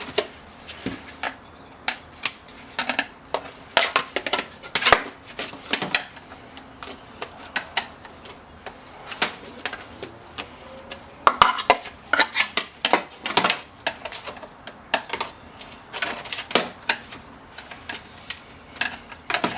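Irregular metallic clinks, taps and scrapes of a hand tool bending small aluminium tabs straight on an electric scooter's bottom plate, with a quicker, louder run of clinks about halfway through.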